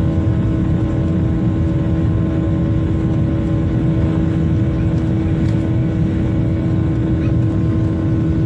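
Inside the cabin of a jet airliner, its engines running with a steady hum over a loud low rumble as the aircraft rolls along the ground. The sound holds level throughout, with no clear build-up of power.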